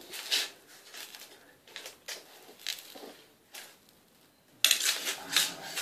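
Handling noises of floor installation work: scattered short scrapes, rustles and light clicks, then a louder scraping rustle about a second before the end.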